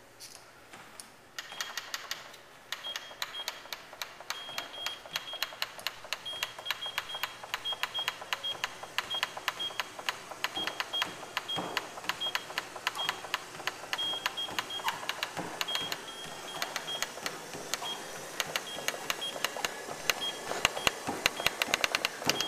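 Rapid thumb presses on a mobile phone's keypad: a steady stream of button clicks, about three a second, with a short high key beep on many of the presses.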